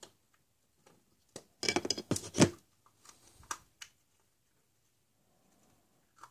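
Hollow plastic toy eggs clattering against each other as a hand rummages through a pile of them, a quick cluster of knocks about a second and a half in, then a few lighter clicks as one plastic egg is pulled open.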